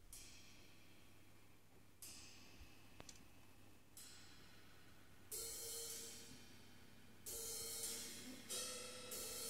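Tam-tam and gongs struck softly with hot rods and left to ring, a stroke about every two seconds, each dying away with a metallic shimmer. From about five seconds in, louder strokes with ringing gong pitches and cymbal shimmer join in.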